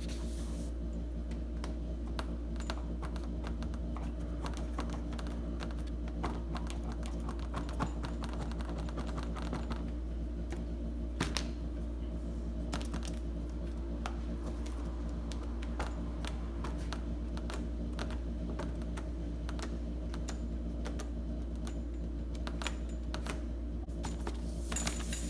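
Scattered small clicks, taps and crinkles from hands pressing and smoothing a glued vinyl sheet onto a door panel, over a steady low hum.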